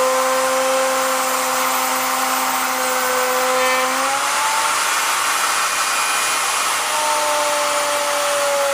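Vevor 5120 plunge router's 3¼ hp motor running with a steady whine while a 3/4-inch straight bit cuts into wood. About four seconds in the whine rises slightly and a rougher cutting noise takes over for a few seconds, then the whine settles again. The motor runs smoothly under the load.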